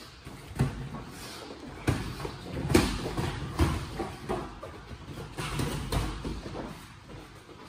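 Boxing-glove punches landing in sparring: irregular sharp thuds, about five of them in the first four seconds, among the scuffing of footwork on the gym floor.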